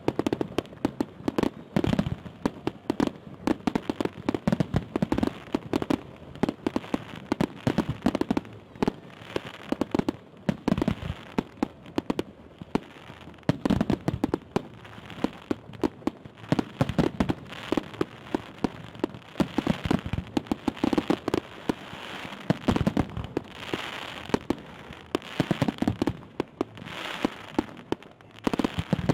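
Fireworks salute going off: a dense, unbroken run of sharp bangs and crackling, several reports a second.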